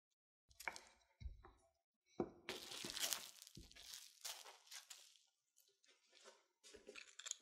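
Plastic cling film crinkling and rustling as a rolled-out sheet of butter cookie dough wrapped in it is handled, starting about two and a half seconds in. Before that, a few soft knocks and thuds.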